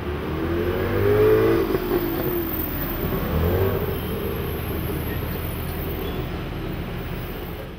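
Street traffic with a car passing close. Its engine swells to a peak about a second in and fades, and another vehicle passes a little after three seconds, over a steady traffic rumble.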